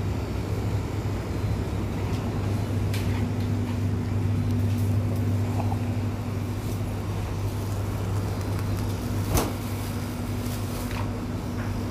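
Steady low hum of a supermarket's cooling equipment, with scattered light clicks and one sharper knock about nine and a half seconds in.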